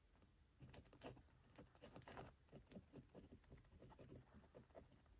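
Faint pen scratching and tapping while writing on a sticky note: a string of quick, irregular small clicks starting about half a second in.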